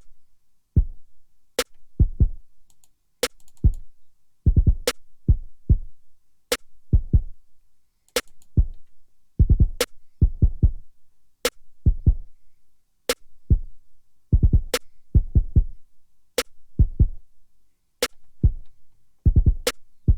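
Programmed drum loop playing back from a Maschine drum kit: a sharp snare hit about every second and a half over deep kick drums that fall at uneven, random places in the pattern.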